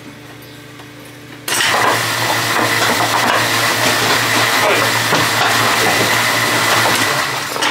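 Barn gutter cleaner switching on about a second and a half in: its drive and chain start running loudly and evenly, with a steady whine over dense rattling.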